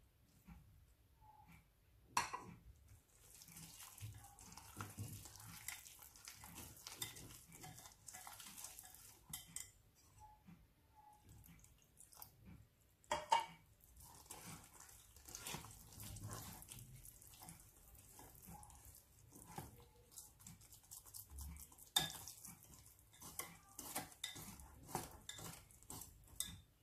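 Wire whisk beating flour, egg and milk into batter in a glass bowl: a faint, continual scraping and clicking of the metal wires against the glass, with three sharper knocks against the bowl.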